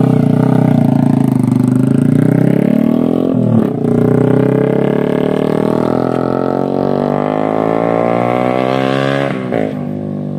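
Honda TMX 125 single-cylinder four-stroke engine through an SC Project slip-on exhaust, pulling away and accelerating. Its pitch climbs, breaks briefly about three and a half seconds in and again near the end as it shifts up, and it fades as the bike rides off.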